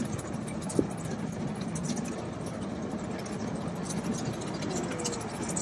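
Miniature steam train running along its track, a steady rumble heard from a riding car, with a single sharp click just under a second in.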